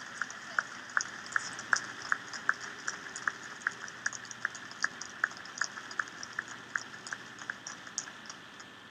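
Applause: hands clapping at about two to three claps a second, with single sharp claps standing out over fainter clapping and dying down toward the end.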